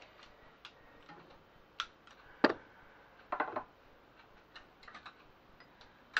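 Scattered light clicks and knocks of a plastic hand-blender pot being handled and set down on a glass-ceramic hob, the loudest a sharp knock about two and a half seconds in, followed by a short clattering cluster about a second later.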